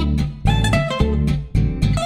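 Background music: plucked guitar over a steady low beat.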